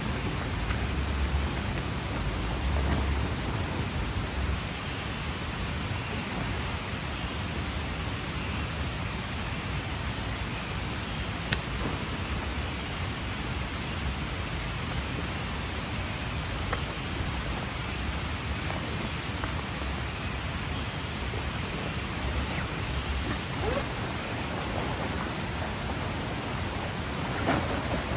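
Forest ambience: a steady, high-pitched insect drone that swells and fades every second or two over an even hiss, with one sharp click a little before halfway.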